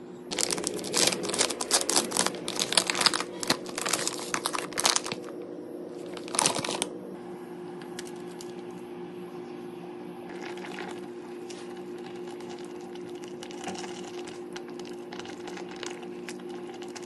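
Packaging crinkling as it is handled, in dense irregular crackles for about five seconds, with one more short burst about six and a half seconds in, then only faint scattered ticks. A steady low hum runs underneath.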